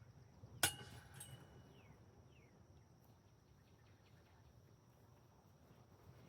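A disc golf disc striking the metal basket: one sharp ringing clang, then a lighter metallic clink about half a second later, with a few fading chimes. A steady high insect drone runs underneath.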